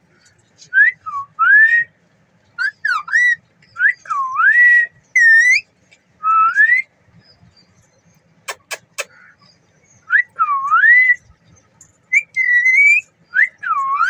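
Indian ringneck parakeet whistling a string of short swooping notes that dip and rise, in groups of one to three with pauses between them. A couple of sharp clicks come about eight and a half seconds in.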